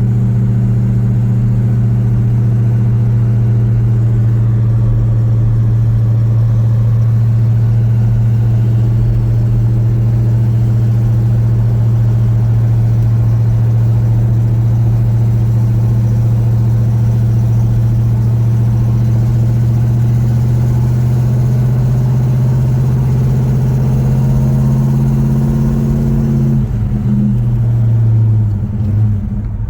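1970 Pontiac GTO Judge's freshly rebuilt 400 V8 pulling the car at a steady engine speed on a break-in drive, a constant drone. Near the end the pitch drops and wavers as the car slows.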